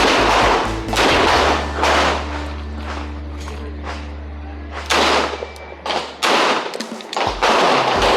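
Revolver shots in an uneven string, with background music and a held bass note underneath.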